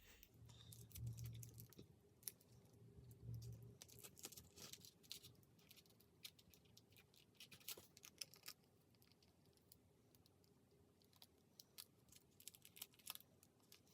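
Faint, irregular light clicks and taps of small device parts being handled, with a couple of soft low bumps about one and three seconds in.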